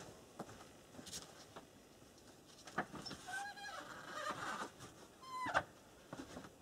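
Scattered small knocks, clicks and rustling of a pot and a bag being handled and packed away, with two short squeaks, one about three seconds in and one about five and a half seconds in.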